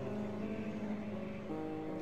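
Music of slow, held chords that change every second or so.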